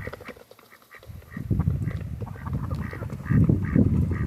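A flock of farm poultry giving short, repeated honking calls while crowding to feed, over low scuffling and rustling noise.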